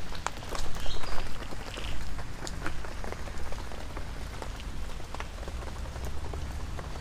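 Rain pattering on leaves: a steady hiss with scattered sharp drop clicks, thickest in the first few seconds, over a low rumble.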